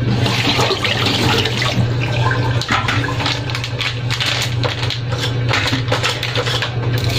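Plastic hot dog packet crinkling and crackling as it is torn open and handled, the hot dogs pushed out onto a steel plate, over a steady low hum.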